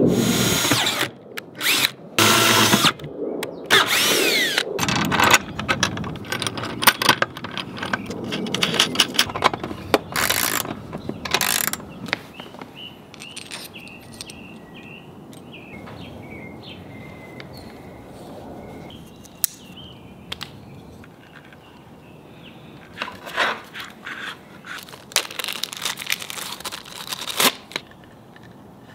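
Power drill running in several short bursts, its pitch rising as it spins up, while mounting holes are drilled for an antenna bracket. Later come scattered clicks and rattles of small parts and cable fittings being handled.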